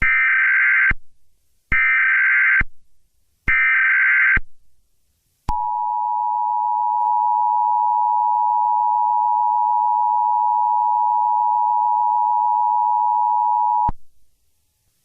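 Emergency Alert System header: three bursts of SAME digital data, each a screeching warble about a second long. They are followed by the two-tone EAS attention signal, held steady for about eight seconds before cutting off abruptly.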